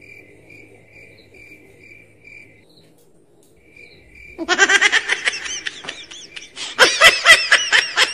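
Faint, evenly spaced insect chirping. About halfway in, a loud, rapid run of high-pitched laughing pulses, about eight a second, breaks in briefly and goes on again.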